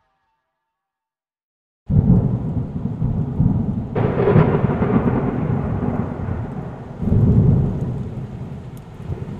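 Silence for about two seconds, then a thunderstorm sound effect starts suddenly: low rumbling thunder over steady rain, with new rolls of thunder swelling about four and seven seconds in.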